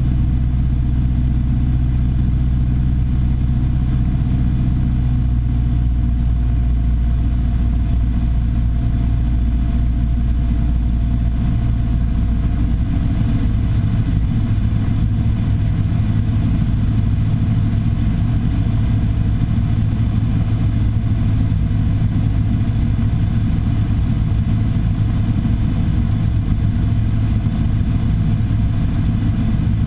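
Piper Warrior III's four-cylinder Lycoming piston engine and propeller running with a steady drone; the engine note shifts partway through, then holds steady again.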